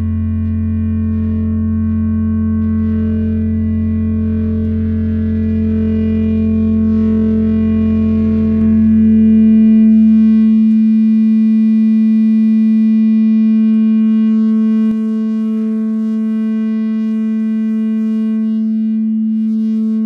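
Meng Qi Wing Pinger filter-based synthesizer sounding a sustained drone of several held, ringing tones. A deep bass tone fades out about halfway through, just as the middle tone swells, and a single click comes about three quarters of the way in, after which the drone is a little quieter.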